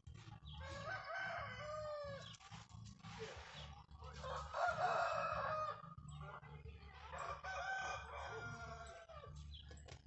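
Chickens calling in three bouts of clucking and crowing, the loudest a rooster-like crow about five seconds in, over a steady low rumble.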